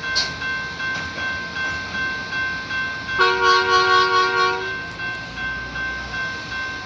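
A Trackmobile's horn gives one blast of about a second and a half, a chord of several tones, about three seconds in. Under it a railroad grade-crossing bell dings steadily about twice a second.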